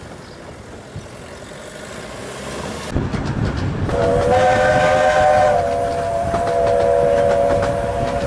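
Miniature steam locomotive's whistle, sounded as one long chord of several notes for about four seconds starting about four seconds in, over the clicking of the train's wheels on the rail joints. The first few seconds are a quieter stretch of outdoor background.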